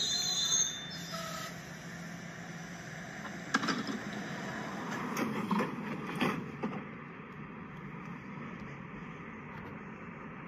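LEGO passenger train running past on plastic track, with a high squeal in the first moment. A few seconds in there are several sharp knocks, and after that only a faint steady hiss remains.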